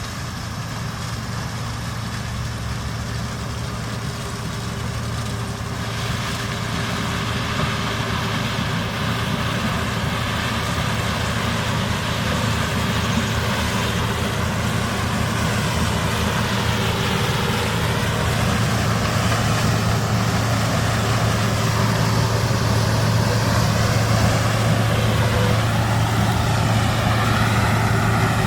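Heavy farm diesel engine running steadily and growing gradually louder, with a wavering whine over it from about halfway.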